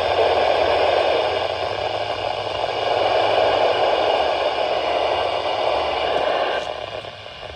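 Steady radio static hiss from a weather-radio receiver, dropping in level near the end.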